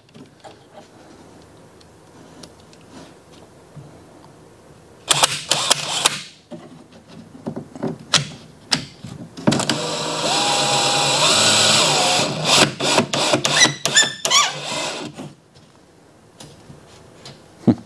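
DeWalt cordless drill/driver driving a long screw through two cabinet sides with no pilot hole. First comes a short burst, then a longer run of a few seconds with the motor pitch rising, ending in a series of short stop-start pulses.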